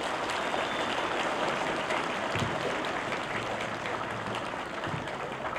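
Large crowd applauding steadily, many hands clapping together.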